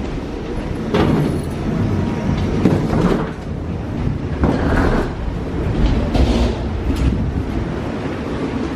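Wheels of a rolling suitcase rumbling steadily along a jet bridge floor, with a few sharp knocks as they cross the floor's joints.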